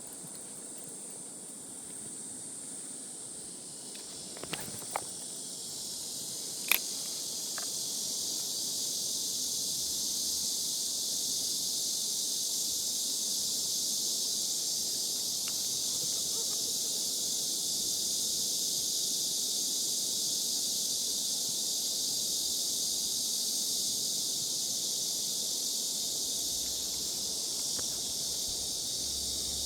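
Steady high-pitched chorus of summer insects, swelling a few seconds in and then holding level. A few sharp clicks sound near the start.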